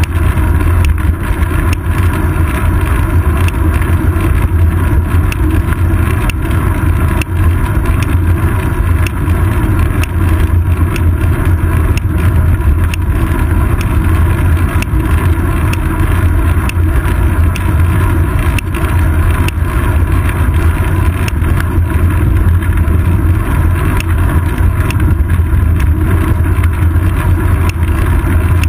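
Steady wind and road rumble picked up by a GoPro Hero 2 mounted on a moving bicycle's seat post, with frequent small ticks and rattles from the bumpy ride.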